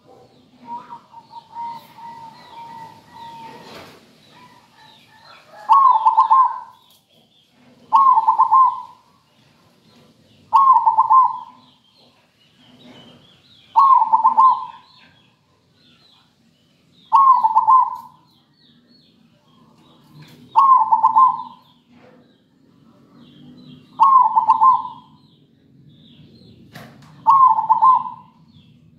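Zebra dove (perkutut) cooing in song, repeating its short rolling coo phrase about every three seconds. The phrases begin about six seconds in; before them a steady tone holds for a few seconds, and faint chirping of small birds runs underneath.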